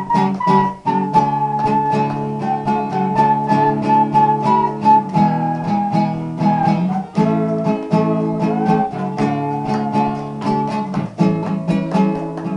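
Instrumental break of a Brazilian viola song: plucked viola caipira and guitar strings keep an even rhythm beneath a held, slightly wavering lead melody that slowly steps down in pitch.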